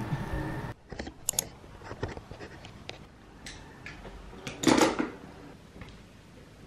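A steady hiss that cuts off abruptly under a second in, then a person handling things: scattered light clicks and short rustles, with one louder rustle about five seconds in.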